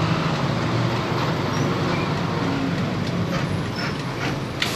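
Steady running noise heard from inside a city bus moving in traffic, with a low engine hum and a few faint rattles, and a sharp click near the end.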